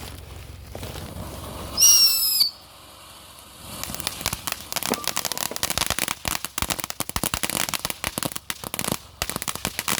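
Consumer fireworks going off. A hiss builds, then a brief shrill whistle about two seconds in, the loudest sound. From about four seconds on comes dense rapid crackling.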